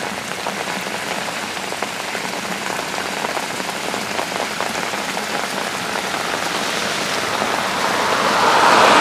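Flash-flood runoff water running and splashing over grass and concrete, with a crackling patter of many small drops, growing louder near the end as the water pours into a storm-sewer grate.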